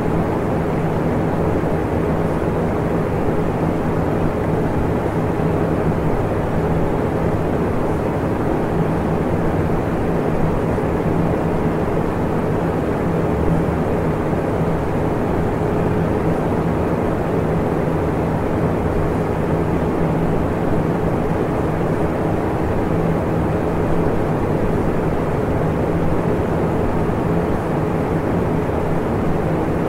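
Steady low rumbling noise with a faint hum in it, unchanging throughout.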